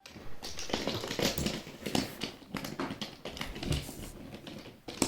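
Irregular clicks, taps and rustling of toys being handled on a hard surface.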